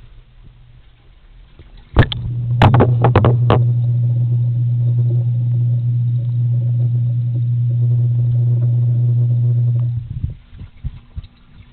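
Microwave running with a steady low hum for about eight seconds, set off by a sharp click and followed by a few more clicks, then cutting off suddenly.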